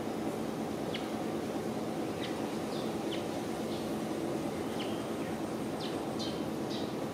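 Birds chirping in short, high calls, about a dozen spread through, over a steady low hum of background noise.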